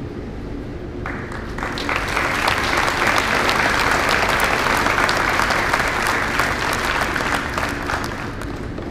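Audience applause: it breaks out about a second in, swells to a full round of clapping, then tapers off near the end.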